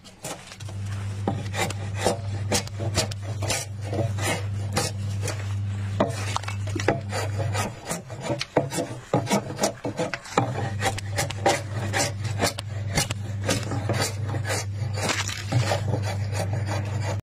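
Hooked steel blade scraping and shaving the inside of a hollowed wooden log in repeated strokes, the wood rasping as shavings peel off. A steady low hum runs underneath and drops out for a few seconds around the middle.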